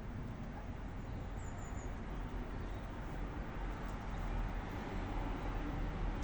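Steady low rumble of distant road traffic, with a quick run of three faint, high bird chirps about a second and a half in.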